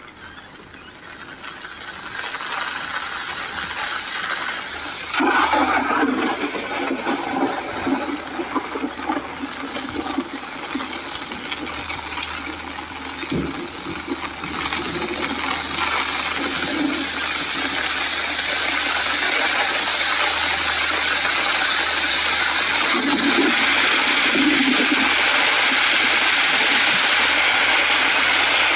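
Rain falling on a car's roof and windshield: a steady hiss that jumps up about five seconds in and keeps growing heavier, loudest in the last few seconds.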